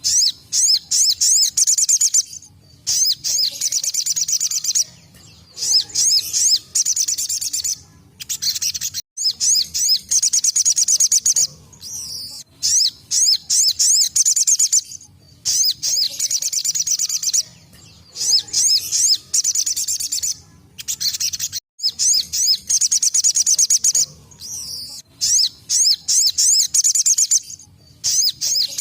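Ruby-cheeked sunbird (sogon) singing its rapid, high-pitched 'tembakan' trill. Bouts of one to three seconds are repeated with short pauses between them.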